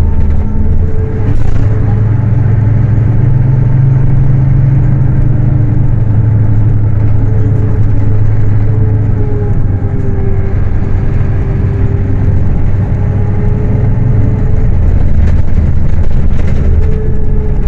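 Scania K310UA city bus engine running under way, a steady low drone. Its pitch rises about a second in, holds, and drops back lower near the end.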